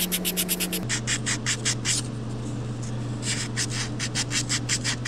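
Emery cloth rubbed by hand over the outer edge of a hydraulic ram seal in quick back-and-forth strokes, about seven a second, with a pause of about a second midway. The strokes sand off the seal's green preservative coating down to bare metal so that bearing mount will stick.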